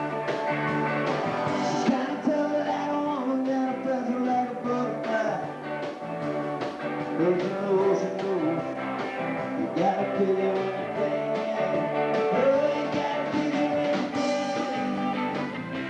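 Rock band playing a song: guitars over a steady drum beat, with a bending melody line on top.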